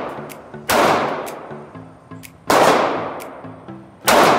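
A pistol fired three times, about 1.7 seconds apart, each shot echoing and dying away over about a second in an indoor range.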